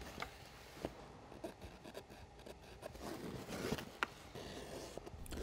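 Faint scraping and rustling as a soapstone pencil marks Sunbrella canvas and the fabric is handled, with scattered soft clicks and taps.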